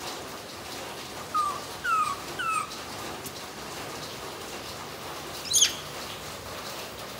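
Baby macaque giving three short, falling squeaky calls in quick succession, then one sharper, higher-pitched squeal a few seconds later.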